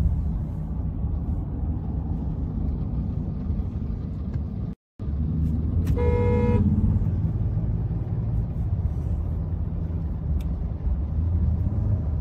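Steady low road and engine rumble heard from inside a moving car, with a single car horn honk of under a second about six seconds in.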